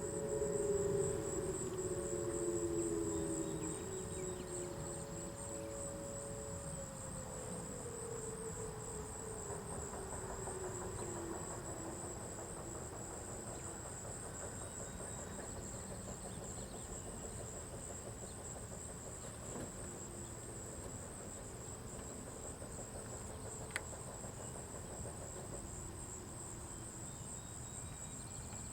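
Whelen WPS-2809 electronic storm siren winding down at the end of its test: its several tones slide lower and fade out over the first ten seconds or so. After that a steady, high-pitched chirring of insects is left.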